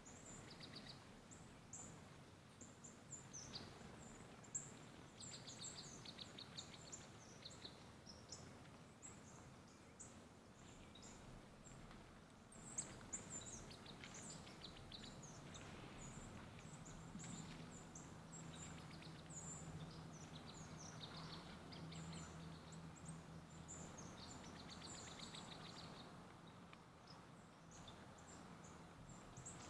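Faint woodland ambience with small birds chirping: scattered short high calls and a rapid trill that comes back several times. A faint low steady hum sits under the birds through the second half.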